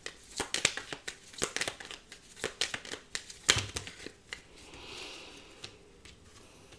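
Tarot cards shuffled by hand: a quick, irregular run of crisp snaps and taps for about four seconds, then a softer swish of cards sliding against each other.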